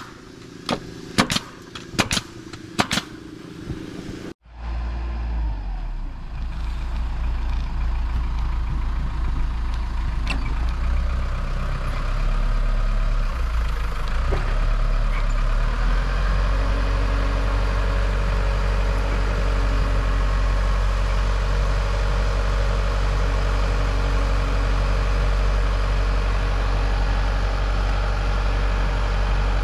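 A pneumatic nail gun fires about half a dozen nails into plywood sheathing in quick succession. About four seconds in, this gives way to a telehandler's engine running steadily.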